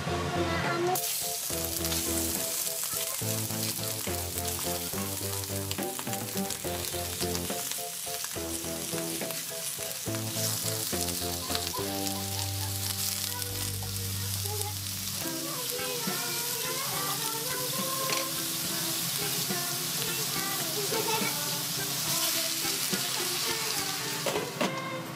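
Raw shrimp sizzling in hot oil in a frying pan, the sizzle starting suddenly about a second in as they hit the pan, and stirred with a wooden spatula. Background music plays along with it.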